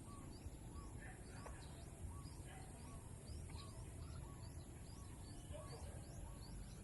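Birds chirping faintly outdoors: a steady run of short, high chirps, about two or three a second, with a few lower call notes, over a low background rumble.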